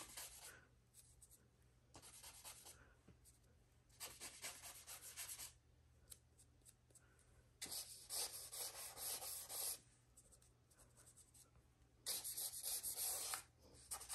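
Blending brush scrubbing ink onto a coloring-book page: soft swishing rubs that come in about five bursts of one to two seconds, with quiet gaps between them.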